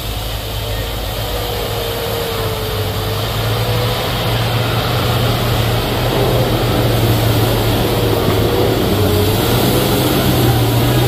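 Heavy vehicle engine running under load on a steep climb, a steady low drone with a wavering higher whine above it, growing gradually louder.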